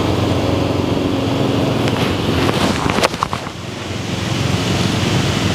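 A single sharp click about three seconds in: an 8-iron striking an ALMOSTGOLF practice ball off the ground. Under it runs a steady low engine hum.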